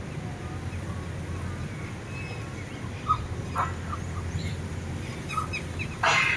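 Birds chirping in short scattered notes over a steady low rumble of wind on the microphone, with a louder, harsher call near the end.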